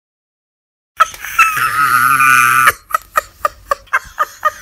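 Comic voice-like sound effect after about a second of silence: a strained, wavering sustained sound, then a rapid string of short pitched blips, about four a second.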